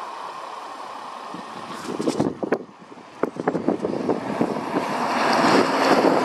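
Renault eight-wheel lorry approaching and passing on a wet road: its engine running and tyres hissing through the spray, growing louder toward the end. Wind buffets the microphone about two to three seconds in.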